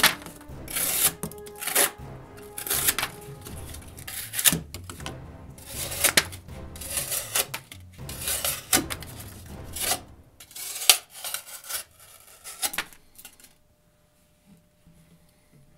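A D2-steel folding knife blade cutting into material in a run of short, sharp strokes, about one a second, which stop about 13 seconds in. Background music plays underneath.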